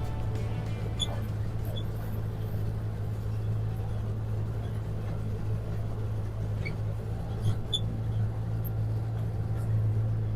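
A vehicle engine running steadily with a low, even hum, with a few short high chirps over it.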